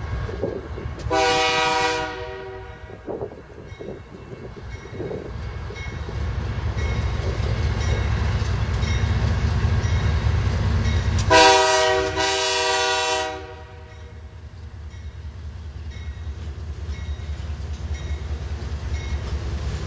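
Canadian Pacific freight train's diesel locomotives sounding their air horn: a short blast about a second in, then two longer blasts close together around the middle. Under the horn, the engines' low rumble grows louder as the train draws near.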